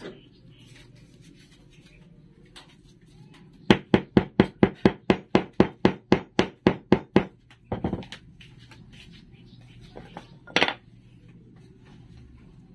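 A fast run of sharp knocks, about five a second for some three seconds, as a wooden dowel is tapped down into a plywood base. A few scattered knocks follow, one of them a little louder.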